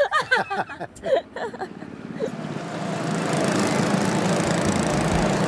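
Go-kart motors running as a pack of karts pulls away from the start, the sound building over about a second and then holding steady.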